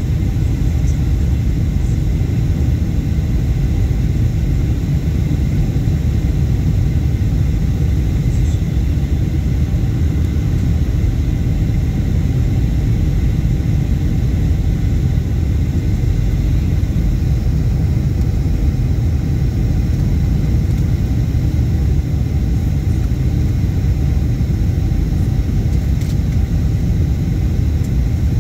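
Passenger airliner's cabin noise during final approach, heard from a window seat: a steady, loud low rumble.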